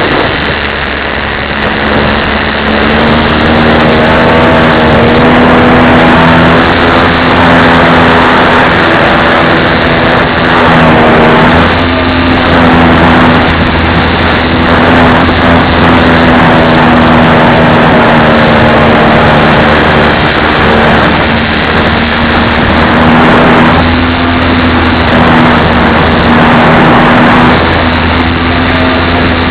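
Radio-controlled model plane's motor and propeller running under power, a loud steady drone whose pitch wavers slightly up and down with throttle, over a heavy rush of air noise.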